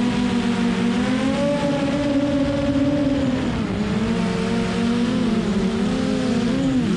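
Hubsan Zino Pro quadcopter's motors and propellers whining in flight, picked up by a camera mounted right on top of the drone, over a rushing hiss. The pitch rises about a second in, drops sharply around three and a half seconds, and wavers near the end as the motors change speed.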